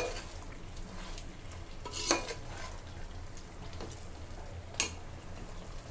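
A steel spoon stirs chicken, tomato and masala in an aluminium pot over a low frying sizzle. The spoon clinks against the pot three times: once at the start, loudest about two seconds in, and again near the end.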